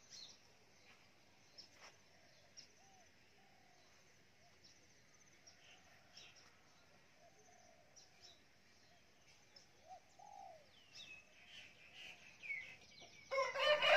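Faint bird calls: soft low coo-like notes and short high chirps. Just before the end, a much louder call begins, a rooster crowing.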